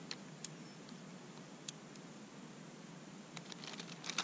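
Faint, scattered small clicks of fishing tackle being handled, with a quick run of clicks near the end.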